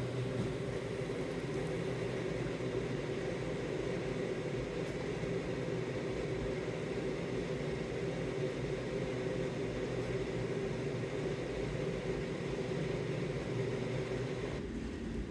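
Wood-fired maple sap evaporator running at full boil: a steady low rumble of the firebox and the boiling sap in the pan.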